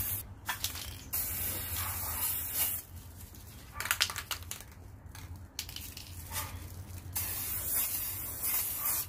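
Aerosol can of silver spray lacquer hissing in several bursts of one to two seconds each. It is being sprayed from a distance in light passes to lay down a thin coat.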